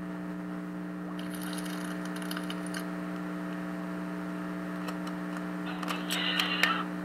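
Steady electrical hum from a spirit-box speaker, the hum the uploader heard come out of the box. There is a short burst of high hiss just after a second in, and a cluster of clicks with a burst of static near the end.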